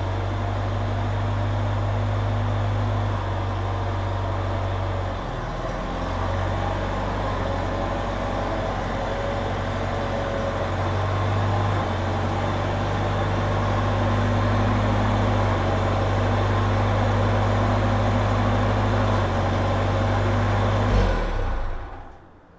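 Farmall Cub tractor's four-cylinder gasoline engine running steadily as the tractor drives in, with a brief change in engine note about five seconds in. About 21 seconds in it gives a short blip and is shut off, dying away within about a second.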